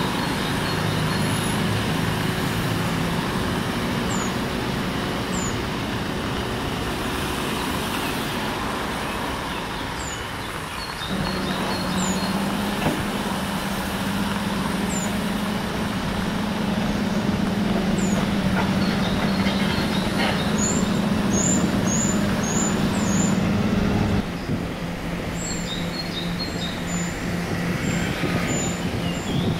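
Wheel loader's diesel engine running steadily under load as it pushes deep snow with a front V-plow. The engine note changes abruptly about eleven seconds in and again near twenty-four seconds.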